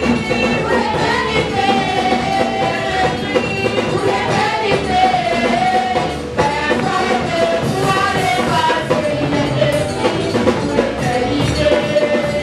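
Live gospel praise singing: a woman's lead voice with backing singers on microphones, amplified through the PA, over a drum kit.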